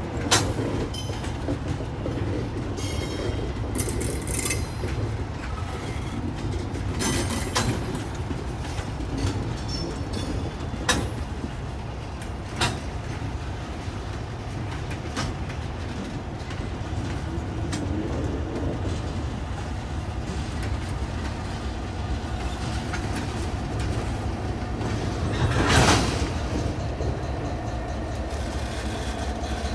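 Freight train of box wagons rolling slowly past on steel rails: a steady low rumble of wheels, broken by a few sharp clanks and wheel clicks, the loudest near the end as the trailing diesel locomotive comes past.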